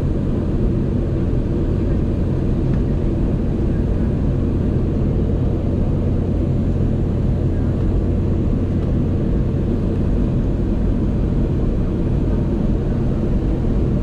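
Steady cabin noise of a Boeing 717-200 in flight: a rumble of airflow and the rear-mounted Rolls-Royce BR715 turbofans, with a steady low hum underneath.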